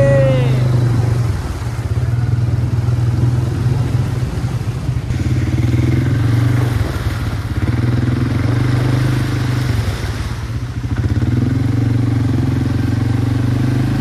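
ATV (quad bike) engine running under way, its note rising and easing with the throttle several times. A brief shout right at the start.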